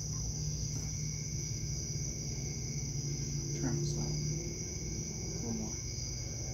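Steady, unbroken high trill of crickets in the background, over a low steady hum, with short murmured voices.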